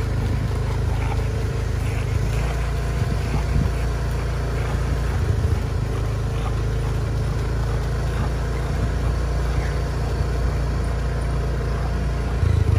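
Steady low rumble of wind buffeting the microphone, with a couple of stronger gusts near the end.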